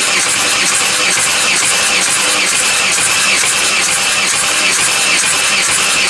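VW Crafter 2.5 L ten-valve five-cylinder turbodiesel (BJL) being cranked over on the starter, running at an even level, as compression builds on the gauge during a compression test.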